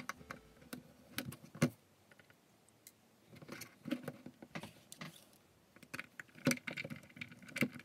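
Irregular small metallic clicks and taps of a precision screwdriver and fingers working on tiny screws and the metal connector cover inside an iPhone 5, with a quieter stretch about two seconds in.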